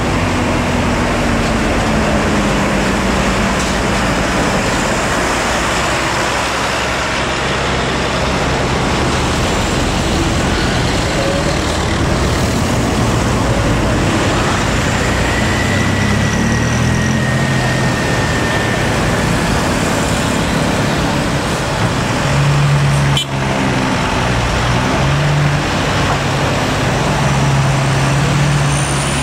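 Heavy road traffic at close range: a bus and loaded cargo trucks with diesel engines running as they crawl past, with cars and motorbikes among them.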